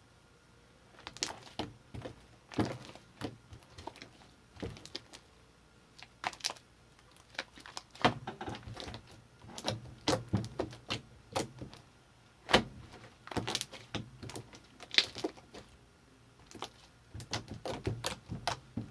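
Hands squishing, stretching and poking homemade slime, making irregular sticky pops and clicks, some in quick clusters.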